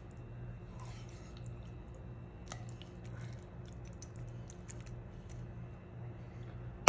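Metal spoon scooping soft cooked pumpkin curry out of a pan onto a plate: soft squishing with a few light clicks of metal on the dish, over a steady low hum.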